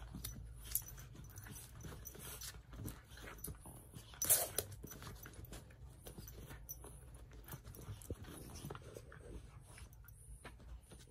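Two small dogs wrestling on a fabric dog bed: faint scuffling of paws and bedding and mouthing, with one short, louder dog sound about four seconds in.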